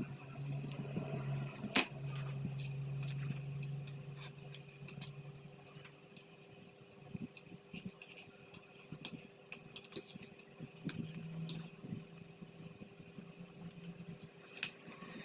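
Someone eating fried instant noodles (Indomie goreng): small clicks of fork on plate and chewing, scattered through, with one sharper click about two seconds in. Over a steady low hum that fades out after about six seconds and returns, slightly higher, near the end.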